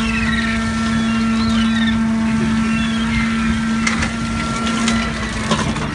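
Fishing boat's deck machinery running with a steady hum over a low rumble, the hum cutting off about five and a half seconds in.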